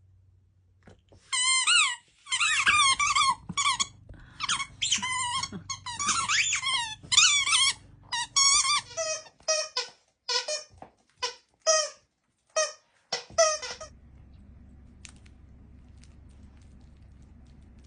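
Squeaky dog toy squeezed over and over in a dog's jaws: a quick string of high squeaks that become shorter and more spaced out, some lower in pitch, and stop about thirteen seconds in. A few faint clicks follow.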